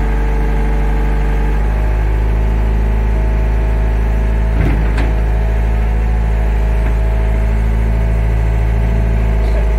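Tracked excavator's diesel engine running steadily close by, its tone shifting slightly a couple of seconds in, with one short knock about halfway through.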